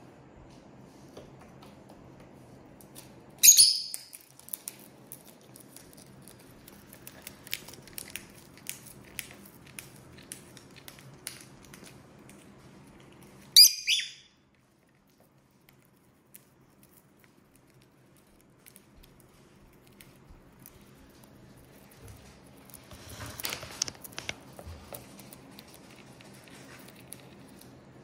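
Pet lovebirds on a wooden tabletop: two short, shrill chirps about ten seconds apart, over scattered light ticks and taps on the wood. There is a brief rustle about three quarters of the way in.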